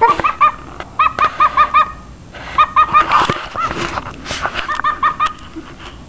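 A cockatiel barking: short, sharp, pitched calls in quick runs of three to five, about four or five a second, with brief pauses between the runs.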